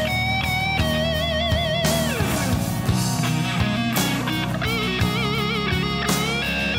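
Rock music with an electric guitar lead: held notes wavering with vibrato, and a note that slides down in pitch about two seconds in, over a steady low backing and regular drum hits.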